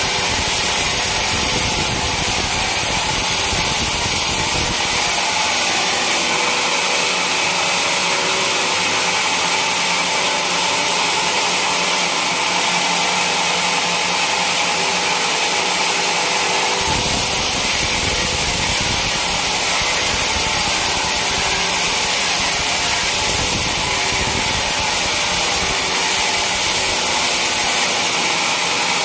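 Sawmill saw running steadily through a teak log, a continuous loud cutting noise. The low rumble underneath drops away for a stretch in the middle.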